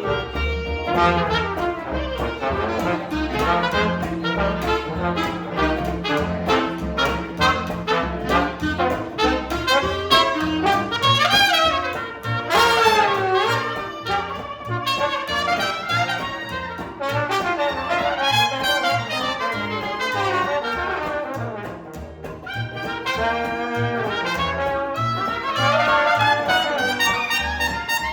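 Live jazz band playing, a trumpet leading with bending, sliding phrases over bass notes and drums.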